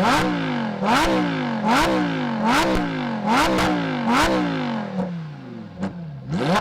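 Lamborghini engine revved in repeated blips, about one a second: each one jumps sharply up in pitch and then falls away. There are six in quick succession, a short lull, then one more.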